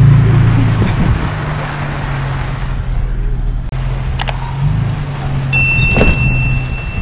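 Toyota Tacoma pickup's engine running, a steady low hum, as it drives a dirt trail. About four seconds in comes a sharp click, and near the end a bell-like ding and a second click from a subscribe-button animation.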